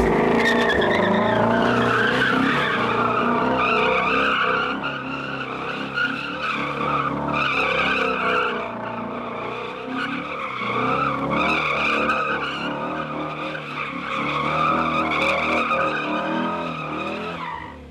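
2018 Ford Shelby GT350 spinning its tyres in a long, loud tyre squeal, its 5.2-litre flat-plane-crank V8 running hard underneath. It cuts off abruptly at the end.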